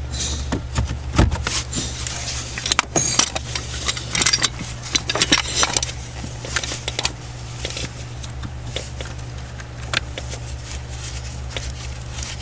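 Small metal parts and screws clicking and rattling as they are handled, in quick irregular bursts that thin out after about seven seconds, over a steady low hum.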